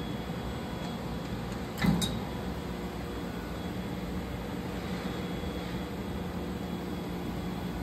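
Steady hum of workshop machinery and air handling, with faint steady tones over an even noise. A single short knock about two seconds in.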